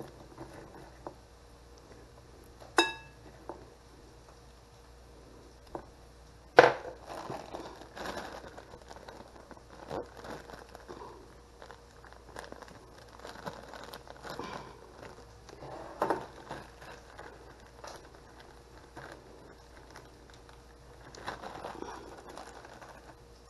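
Zip-top plastic bags crinkling and rustling as they are handled and opened, with scattered light taps of dishware. A short ringing tap comes about 3 s in and a sharper knock just before 7 s, the loudest sound.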